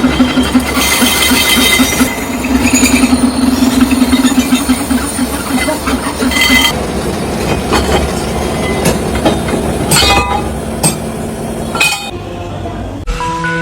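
Workshop machinery in a bronze bell factory running with a fast, rhythmic mechanical clatter for the first half. It then gives way to scattered sharp metal clinks and knocks.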